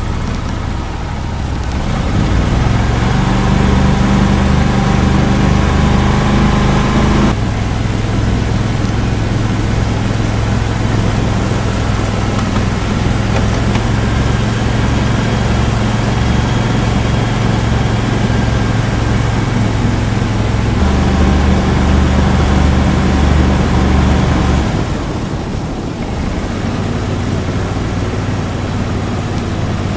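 Small boat's mud motor running under way, steady and loud, its engine speed shifting up and down a few times: up about two seconds in, easing back about seven seconds in, up again about twenty seconds in and easing back a few seconds later. A constant rush of wind and water runs underneath.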